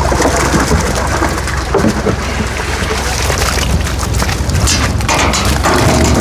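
Rushing, splashing water as a load of live crucian carp is released into a fishing pond, full of rapid small splashes, over a steady low hum.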